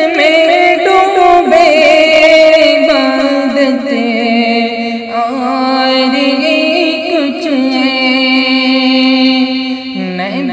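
Male voice singing an Urdu naat in long, drawn-out melodic lines that glide up and down.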